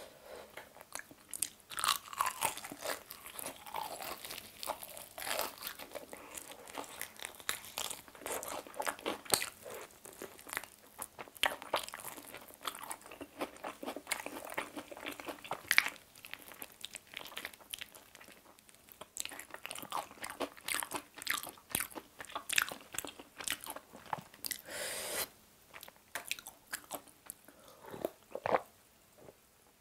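Close-up crunching and chewing of a crispy fried chicken drumstick, with bites through the fried crust and wet chewing sounds throughout. Near the end, sips and swallows from a glass of cola.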